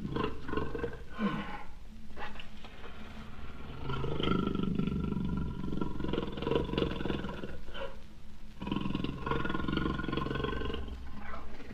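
Jaguar calling: a few short grunts in the first two seconds, then two long, rough, rasping bouts of several seconds each, split by a brief pause.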